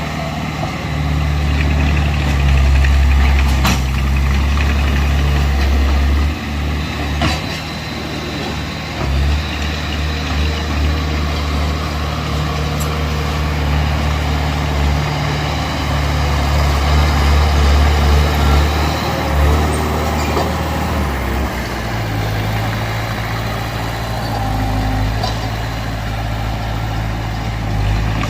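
Heavy diesel engine of earthmoving machinery running under changing load, its note shifting several times, with two sharp clicks about four and seven seconds in.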